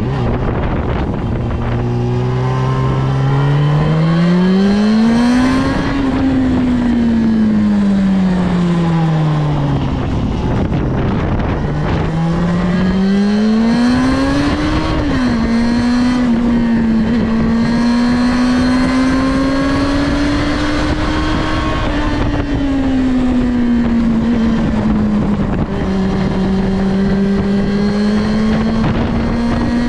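Yamaha Fazer 6 (FZ6) inline-four engine through its stock exhaust, under way: the revs climb over the first few seconds, fall back, climb again, then drop sharply about halfway through at a gear change. After that the engine holds a fairly steady cruising note, dipping once near the end.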